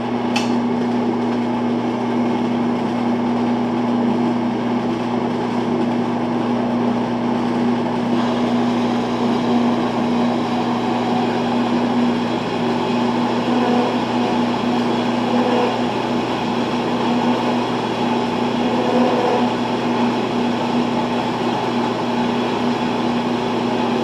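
Kalamazoo 7AW horizontal metal-cutting bandsaw starting up and running steadily, its blade feeding down through metal stock with a steady motor hum.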